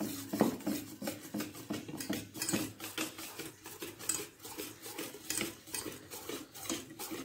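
Wire balloon whisk beating cake batter in a stainless steel bowl, its tines clicking and scraping against the metal in a quick, irregular rhythm as flour is mixed into the egg, sugar and oil batter.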